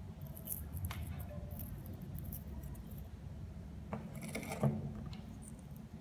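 Small plastic parts of a disassembled shower head handled in the fingers: light scratching and clicking of the plastic rings, with a denser cluster of clicks and one sharper click about four and a half seconds in.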